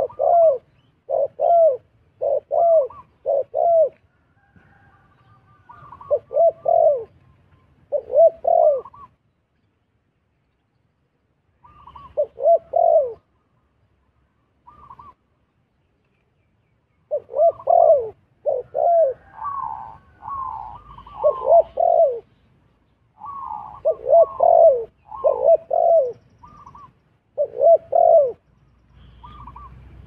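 Spotted doves cooing: series of short, falling coo notes with quiet gaps between the series. A second, higher-pitched voice overlaps in the second half.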